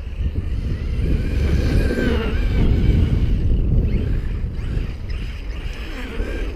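Wind buffeting the microphone, with the whine of a Traxxas X-Maxx RC truck's electric brushless motor rising and falling in pitch as it drives through snow.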